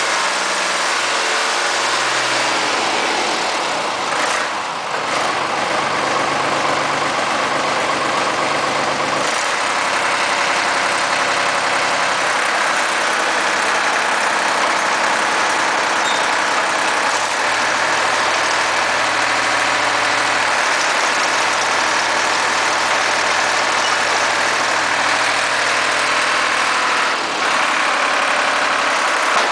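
Deutz F3L912 air-cooled three-cylinder diesel of a Ditch Witch 5110 trencher tractor running, its engine note stepping up and down a few times.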